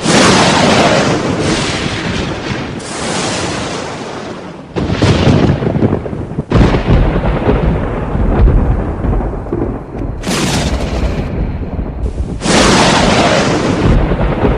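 Loud thunder: a run of cracking thunderclaps and deep rumbling, joined from several recordings that change abruptly every few seconds.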